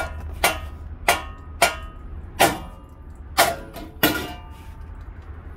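About seven hammer blows on steel at a Jeep Wrangler JK's front steering knuckle, unevenly spaced over about four seconds. Each blow rings briefly, and the hammering stops near the end.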